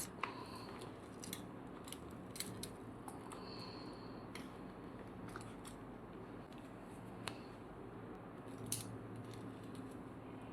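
Faint, irregular clicks and light taps of a stainless-steel watch and its bracelet links being handled, spread sparsely over a quiet room hum.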